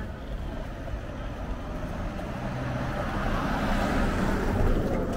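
A van driving past on the road: engine and tyre noise that swells to its loudest about four and a half seconds in, then fades.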